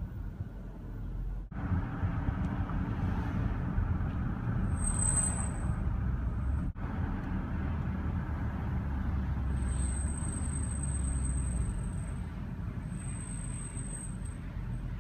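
2014 Range Rover L405 brakes squealing: a thin high-pitched squeal comes in briefly about five seconds in, then again for a couple of seconds later on and once more near the end, over steady road and cabin noise. It is the squeal these brakes develop every 3,000–4,000 miles, after which the pads and rotors need replacing.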